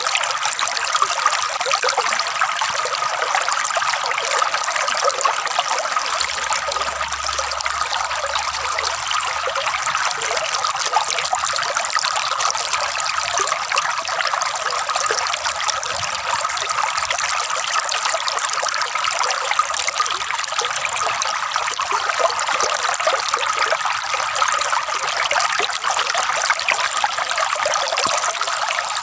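Water flowing and gurgling in a steady trickle.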